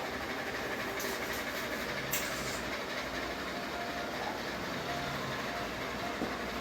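Ceiling fan running with a steady whirring rush, broken by a brief faint hiss about two seconds in.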